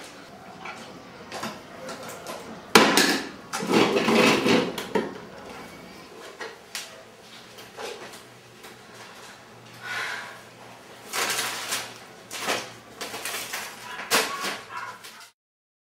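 Groceries being taken out of shopping bags and set down on a kitchen table: scattered knocks, clinks and bag rustling at irregular intervals, stopping suddenly near the end.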